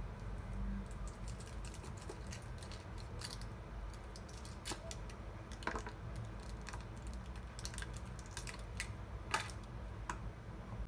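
Irregular sharp clicks and taps of a chef's knife cutting through a foil-wrapped block onto a wooden chopping board, mixed with the crinkle of the foil as the block is handled.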